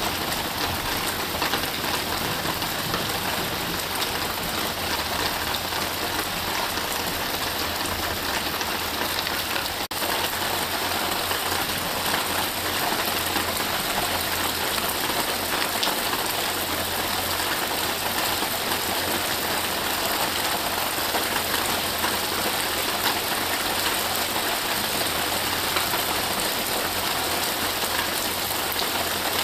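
Steady rain falling, an even, unbroken hiss of drops.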